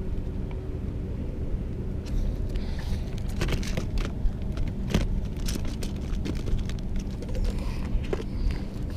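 Fishing tackle being handled and rummaged in a plastic tackle cooler, giving scattered light clicks and rustles from about two seconds in, over a steady low rumble.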